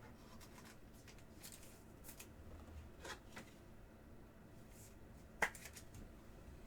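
Trading cards being handled: faint rustling and soft clicks of card stock, with one sharper click about five and a half seconds in.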